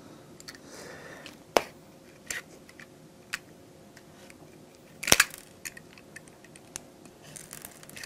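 A utility knife working at the side of a plastic pop bottle: quiet plastic crinkling and scraping, broken by sharp clicks, one about a second and a half in and a louder cluster about five seconds in.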